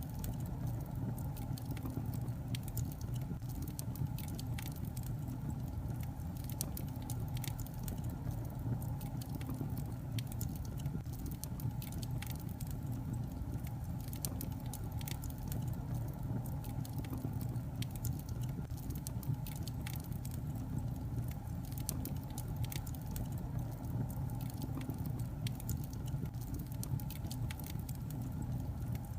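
Wood fire burning in a fireplace: a steady low rumble of the flames with frequent small, irregular crackles and pops from the logs.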